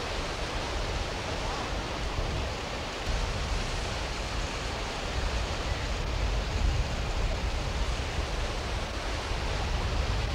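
Steady rushing outdoor noise with a fluctuating low rumble, like wind buffeting a camcorder microphone. It grows slightly louder about halfway through.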